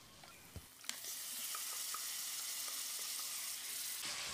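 Yogurt-marinated mutton pieces tipped into hot ghee in an aluminium pressure cooker: a couple of light knocks, then a steady sizzle that starts about a second in as the meat hits the fat.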